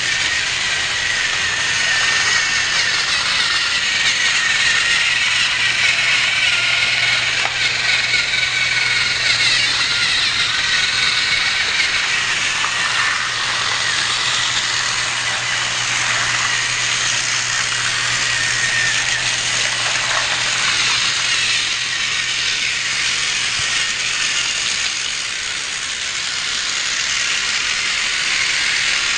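Battery-powered TrackMaster toy train running on plastic track: a steady mechanical rattle with a high whir from its small motor.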